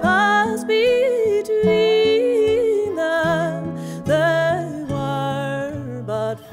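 Slow acoustic folk music: acoustic guitar chords under a lap steel guitar's sliding melody, its notes gliding up into long wavering holds.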